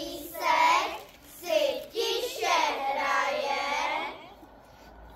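Young children singing a short song in a few drawn-out phrases, stopping a little after four seconds in.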